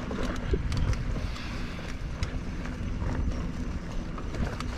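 Specialized Fuse mountain bike rolling over a rough dirt trail: a steady low noise of the tyres on the ground, with irregular sharp clicks and rattles from the bike as it goes over bumps and roots.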